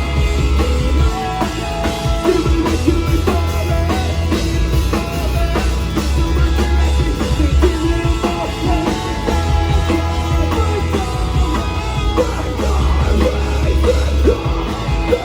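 Rock band playing live with drum kit, bass and guitars, a steady pulsing bass line underneath.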